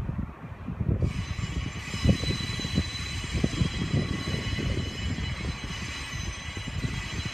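Train running at a rail depot: a continuous low rumble, with a steady high-pitched whine that comes in about a second in and fades near the end.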